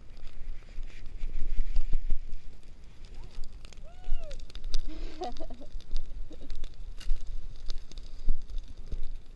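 Wind rumbling on the microphone, with scattered crackles and rustles from dry prairie grass and a grass fire. About four seconds in, a few short pitched calls rise and fall.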